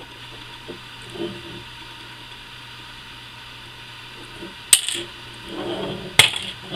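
Hands working a small screwdriver on the plastic and metal parts of a dismantled Daisy Powerline 880 air rifle: light handling noise, then a sharp click nearly five seconds in, a short rustle, and a second sharp click about a second and a half later.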